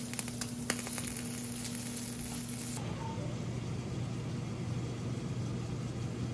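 Freshly roasted chicken drumsticks sizzling and crackling on a small oven's wire rack, with a steady hum under it; about three seconds in this cuts off suddenly, leaving a lower steady hum.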